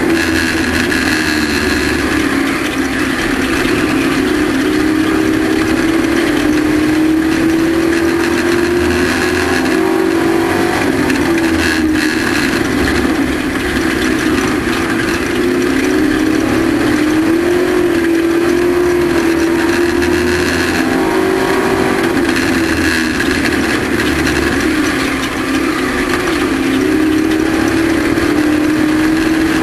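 Race truck engine running hard at racing speed. Its pitch rises and falls every few seconds as it comes on and off the throttle, lap after lap.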